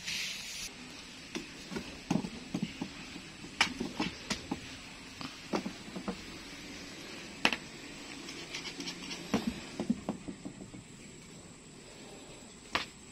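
Irregular sharp taps, scuffs and rustles as cats bat and pounce at a feather wand toy on concrete, over a faint steady high-pitched tone.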